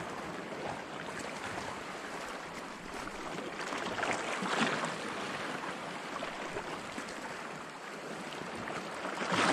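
Small sea waves washing and lapping in the shallows, with wind on the microphone; the wash swells about four seconds in and again near the end.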